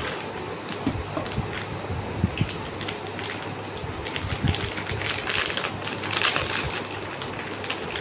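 Packaging crinkling and rustling in the hands as a green beaded necklace is unwrapped, a run of small crackles and clicks that grows busiest about five to seven seconds in.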